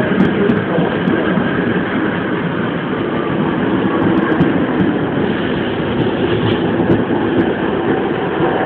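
First Capital Connect Class 319 electric multiple unit running past along a station platform, its carriages giving a loud, steady running noise of wheels on the rails.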